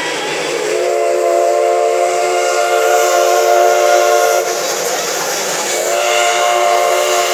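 Black Hills Central Railroad No. 110 steam locomotive's chime whistle, sounding a chord of several notes in two long blasts, the second still going at the end. It is being blown for a road crossing.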